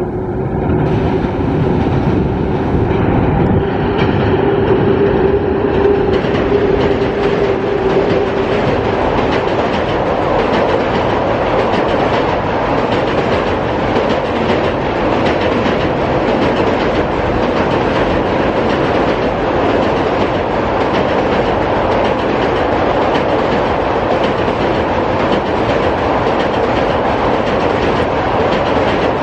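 Express passenger train crossing a bridge at speed, its coach wheels rumbling and clattering steadily over the rail joints. A steady hum fades out about eight seconds in.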